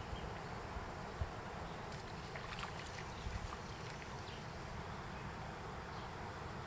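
Faint outdoor ambience: a low wind rumble on the microphone, with a few faint light ticks about two to three seconds in.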